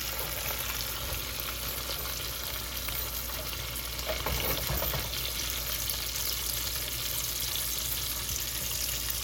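Ribeye steak sizzling steadily in melted butter with garlic and thyme in a cast-iron skillet, at the butter-basting stage. A silicone spatula stirs and scrapes through the butter, a little more audibly about four seconds in.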